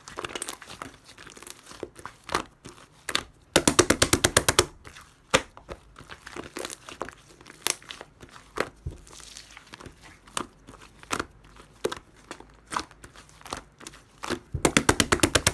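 Slime being squeezed and folded by hand, with sticky crackles and two runs of quick air-bubble pops, about ten a second, around four seconds in and again near the end.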